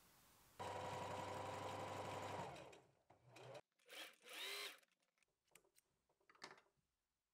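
Singer Heavy Duty 4432 sewing machine running a short stitching burst of about two seconds at a steady speed, then slowing to a stop. A few short clicks and rustles follow as the fabric is handled and drawn away from the machine.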